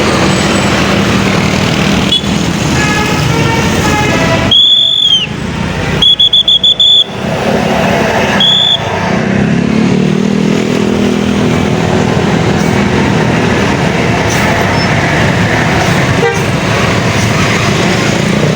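A bus's 'telolet basuri' musical horn plays a short run of stepped notes. A loud high-pitched blast follows, then a quick string of about five short toots and one last toot, with the bus's diesel engine running underneath.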